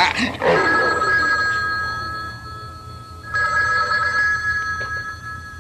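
Push-button desk telephone ringing twice with an electronic two-tone ring, each ring fading away. The tail of a loud growl is heard at the very start.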